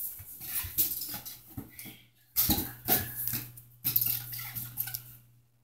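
A kitten scrambling after a balloon on a hard floor: irregular taps, scuffs and bumps of paws and balloon, with a few louder knocks around the middle, over a low steady hum. The sound cuts off abruptly near the end.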